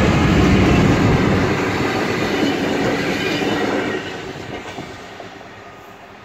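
Freightliner Class 66 diesel-electric locomotives passing close by: engine rumble and wheel-on-rail noise, loud at first and fading away after about four seconds as they draw off.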